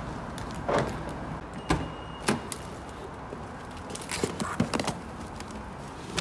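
Footsteps and scattered sharp clicks and knocks as a person walks and climbs into a car, over a steady low background.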